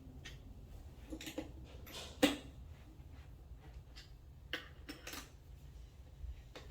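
Scattered light clicks and clinks of screws being hand-tightened into a flat-pack cabinet, with one sharper click a little past two seconds in.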